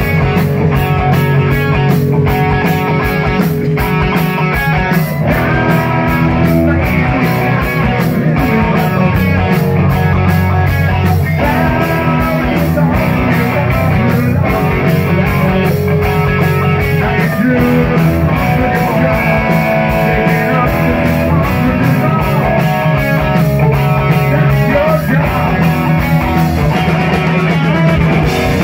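Live rock band playing loud: distorted electric guitars, bass and a fast, steady drumbeat, with a man singing lead vocals into the microphone.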